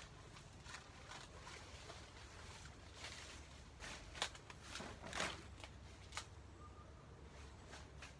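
Faint, scattered rustles and sharp snaps of leaves and stalks being handled among banana plants, the sharpest snap about four seconds in, over a low steady hum.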